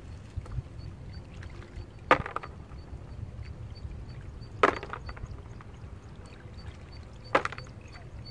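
Three sharp knocks, evenly spaced about two and a half seconds apart, over a steady low rumble.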